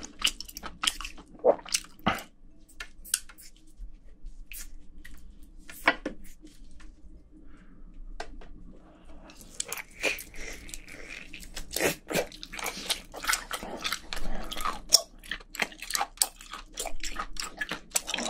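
Kitchen scissors snipping through a boiled octopus tentacle in a few sharp clicks, then, from about ten seconds in, a person biting into and chewing a whole boiled octopus tentacle in a dense run of chewing sounds.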